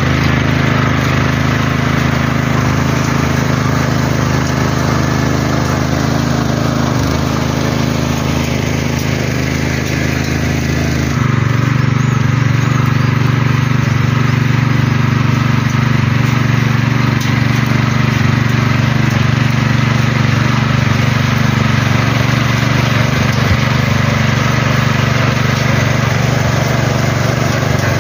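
Toyama 212cc mini tiller's single-cylinder four-stroke petrol engine running steadily under load while its rotating tines churn through dry soil. The engine note shifts about eleven seconds in and then holds steady.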